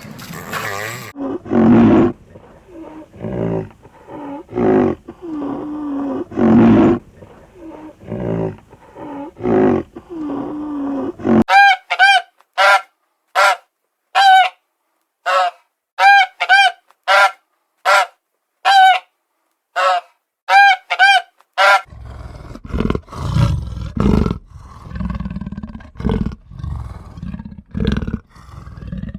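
A run of animal calls from three different animals: first a series of low, repeated calls, then about eighteen short, clear, high calls with silence between each, then low, rough calls from about two-thirds of the way in.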